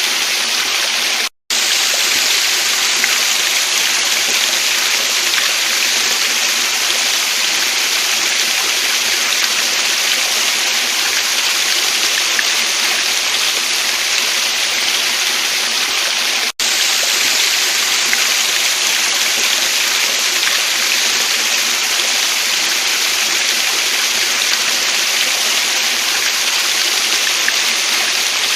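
Waterfall and stream water rushing in a steady, even hiss. The sound cuts out abruptly for a split second twice, about a second and a half in and again about halfway through.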